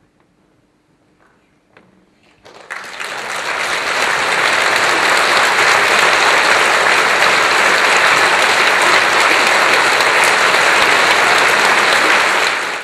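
Concert audience applauding: quiet at first, then clapping starts suddenly about two and a half seconds in, swells over the next second or so and goes on steadily.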